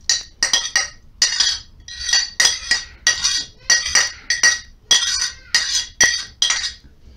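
A metal utensil scraping diced cucumber off a plate into a pot: a quick series of sharp scrapes and clinks, two or three a second, with a faint ringing note from the plate.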